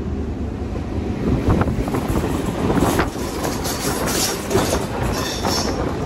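Electric railcar RBDe 4/4 222 running, heard through an open window: a steady rumble of wheels on rail with clickety-clack over the rail joints and a few sharper knocks.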